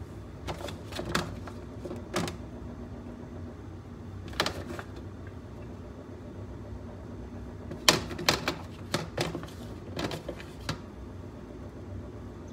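Light clicks and taps of cucumber pieces and fingers on a plate as cucumber is arranged on it by hand. The taps come irregularly, in a cluster near the start, once in the middle, and in a cluster after about eight seconds, over a low steady hum.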